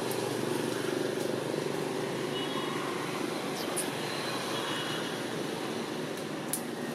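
Steady low outdoor rumble of background noise, with a few faint short high chirps and ticks.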